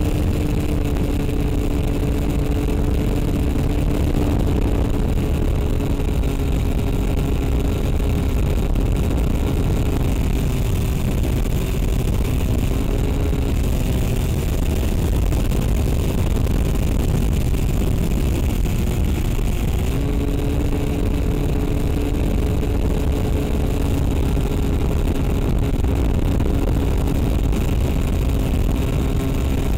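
Electric motor and propeller of an FPV model aircraft, a steady hum over a heavy rush of wind. The hum weakens and drops slightly in pitch through the middle, then comes back strongly about two-thirds of the way through.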